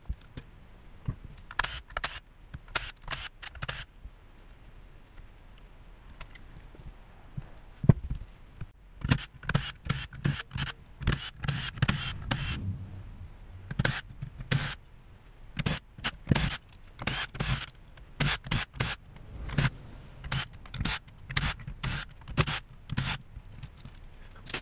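A cordless drill-driver in many short bursts, backing bolts out of an automatic transmission valve body, with clinks and scrapes of small metal parts. The bursts come sparsely at first and much more often from about nine seconds in.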